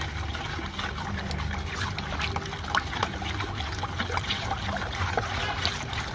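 A wooden stick stirring a thick milky liquid in a plastic bucket, with irregular sloshing and short scrapes and knocks against the bucket.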